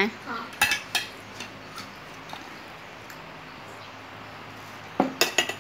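A metal spoon clinking against a ceramic mug: a couple of taps about half a second and a second in, then a quick run of clinks near the end as a powdered drink is stirred.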